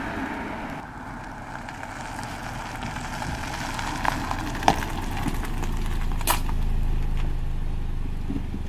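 Car engine running at idle, a steady low rumble, with a few sharp clicks about four, four and a half and six seconds in.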